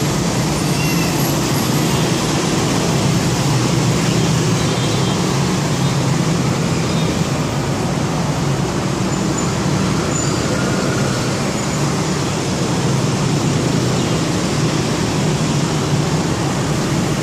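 Steady city road traffic noise with a constant low hum.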